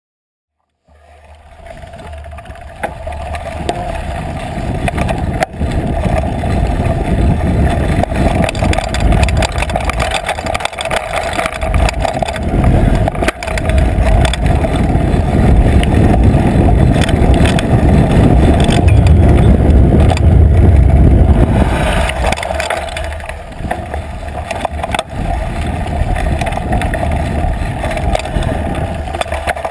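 Trek Fuel EX8 full-suspension mountain bike riding fast down rough dirt and rock singletrack, heard from a camera on the seat post: a heavy tyre and suspension rumble with frequent knocks and rattles from bumps. It starts about a second in, is loudest in the middle and eases off a little near the end.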